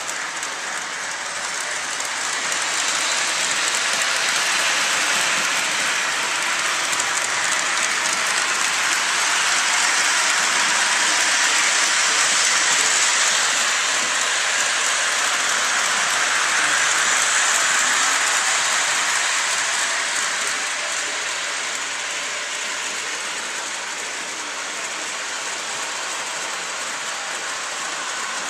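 O scale model train running on the layout's track: a steady rolling hiss and rattle of wheels and motor, growing louder a few seconds in and easing off after about twenty seconds.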